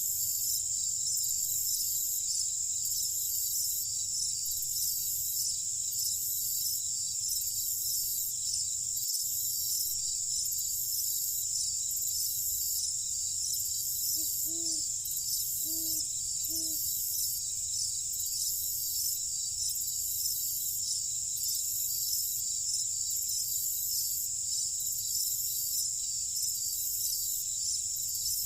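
Night insects, crickets, trilling steadily in a high band that pulses in an even rhythm. About halfway through come three short, low calls from an animal.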